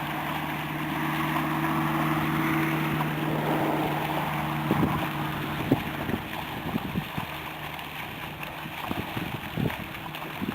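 A motor engine running steadily with an even hum that fades out about five seconds in, with wind noise on the microphone and scattered short knocks afterwards.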